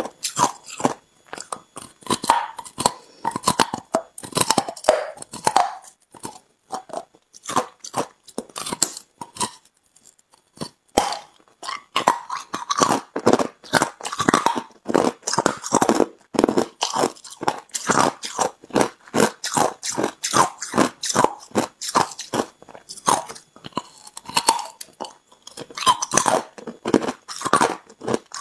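Hard ice being bitten and chewed: a rapid run of loud crunches and cracks, thinning to a few sparse crunches from about six to eleven seconds in.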